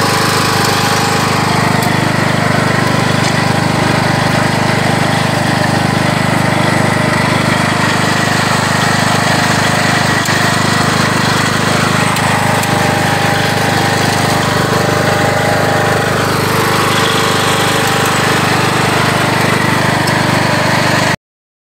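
Troy-Bilt riding lawn tractor's engine running steadily as the tractor is driven over the plot; the sound cuts off suddenly near the end.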